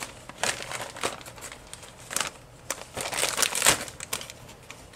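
Plastic bag of shredded mozzarella crinkling and rustling as it is handled, in irregular crackles that are loudest about three and a half seconds in.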